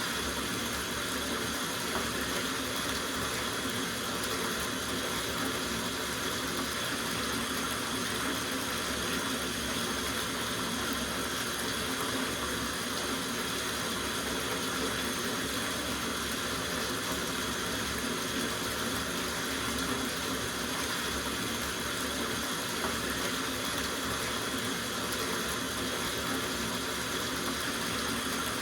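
Water running steadily from the tap into a soaking bathtub as it fills: an even, unbroken rush of falling water.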